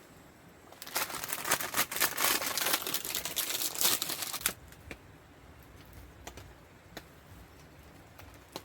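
Plastic packet crinkling and tearing as it is handled and opened, for about three and a half seconds, then only scattered small pops from a campfire.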